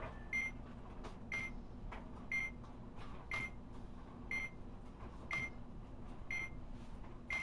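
A short, high electronic beep repeating about once a second, with faint ticks in between over a low steady hum.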